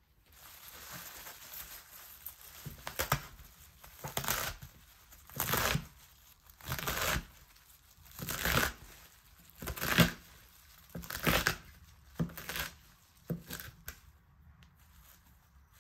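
Chef's knife roughly chopping a bunch of fresh mint on a wooden cutting board. Each slow stroke is a crisp crunch through leaves and stems, ending in a knock of the blade on the board, about one every second and a half. The first couple of seconds are softer rustling of the leaves.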